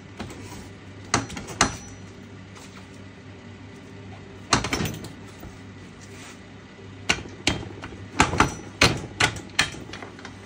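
Motorcycle drive chain being worked back onto the rear sprocket of a Yamaha TW200: about ten sharp clicks and clacks, irregularly spaced and busiest in the last few seconds.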